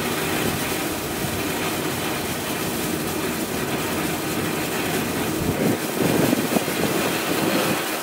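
Sony Fireworks 'Thousands of Goldstar' ground fountain firework burning: a steady, dense hiss of the spark spray with fine crackling, rougher and a little louder for a moment about six seconds in.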